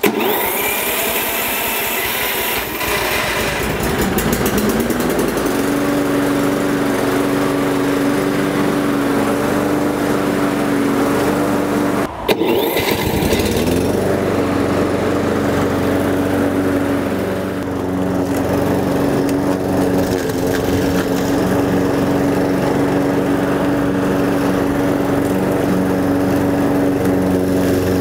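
Toro Personal Pace self-propelled lawnmower's small petrol engine running steadily. It rises in speed a few seconds in, breaks off briefly about halfway, then picks up again to a steady run. The run is a test for drive-belt squeal after a twig was cleared from the belt pulley.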